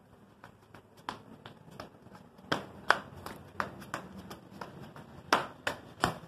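Irregular sharp clicks and taps, about three a second, loudest a little over two seconds in and near the end: gloved hands moving and tapping close to the microphone.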